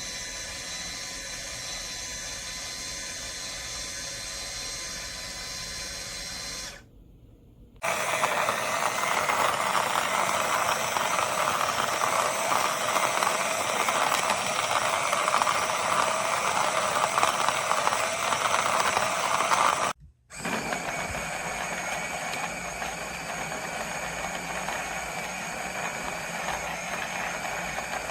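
Cordless electric conical burr coffee grinder's motor running in three stretches: a steady whine for about seven seconds, then after a short pause a louder, rougher run of about twelve seconds, then after a brief break another steady run.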